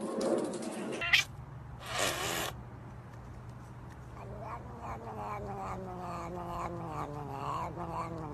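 A cat yowling: one long, drawn-out call that slowly falls in pitch, starting about halfway through. Before it there is a sharp click and a short burst of noise.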